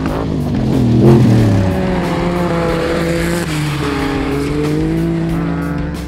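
Off-road race buggy engine revving hard over a jump, its pitch swooping up and down about a second in, then held at high revs. Music plays underneath.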